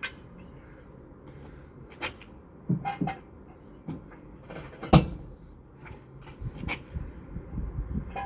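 Metal hand tools and engine parts clinking and knocking as they are handled during engine work: a scattering of separate knocks, the loudest about five seconds in.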